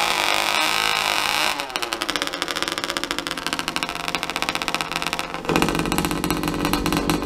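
Two-stroke engine blowing through a vuvuzela exhaust. It holds a steady high-revving horn-like tone, drops suddenly to a lower, pulsing idle about a second and a half in, then is revved up again near the end.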